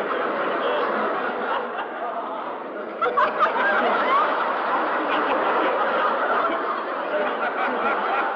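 A crowd laughing together, many voices overlapping. About three seconds in, the laughter jumps louder as a new burst begins, with single laughs standing out from the mass.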